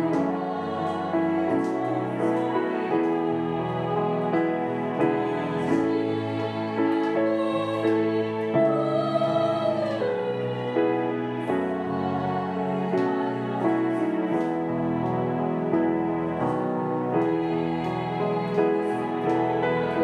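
A small women's choir singing a hymn with instrumental accompaniment.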